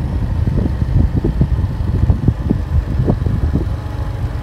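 Wind buffeting the microphone on a moving automatic scooter, a low uneven rumble with irregular gusty thumps over the scooter's engine running underneath.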